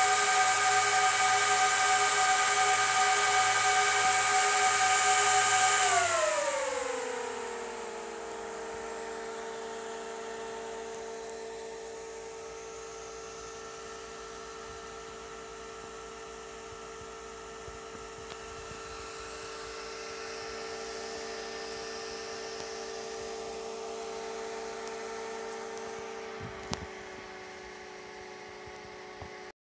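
IBM System x3650 M3 server's cooling fans running at full speed with a loud steady whine, then spinning down about six seconds in to a lower, quieter whine as the fans throttle back after power-on. A single short knock near the end.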